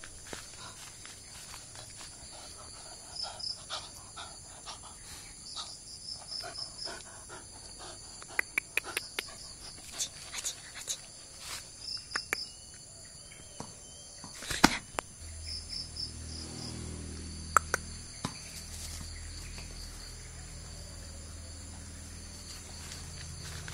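Insects chirping in short repeated trills, with scattered knocks and thumps, the loudest a sharp knock about halfway through. A low steady hum comes in soon after and stays.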